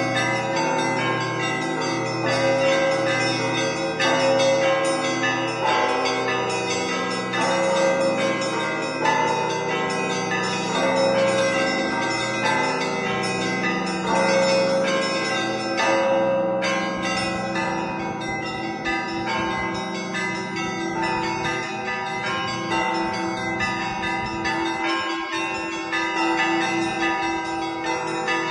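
Russian Orthodox church bells rung as a zvon: many bells struck in a steady rhythmic pattern, the small high bells ringing rapidly over the lower bells, which keep sounding. The pattern of strokes changes about halfway through.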